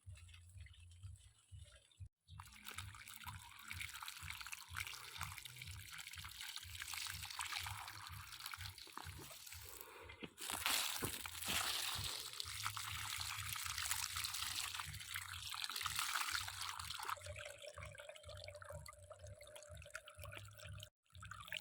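Water pouring and splashing steadily. It starts suddenly about two seconds in and is louder from about ten seconds in.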